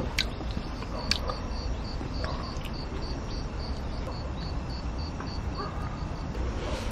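An insect chirping steadily, a short high chirp repeating a few times a second, with a couple of sharp clicks in the first second or so.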